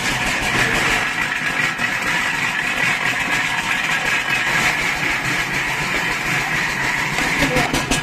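Motor-driven sugarcane mill (trapiche) running steadily, a continuous engine drone with a hissing, grinding noise over it.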